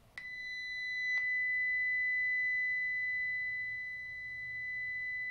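Steady high-pitched 2 kHz tone played back to stand for hydrogen nuclei (protons in water) precessing at their Larmor frequency in Earth's magnetic field. It starts with a click a fraction of a second in, with a second click about a second in.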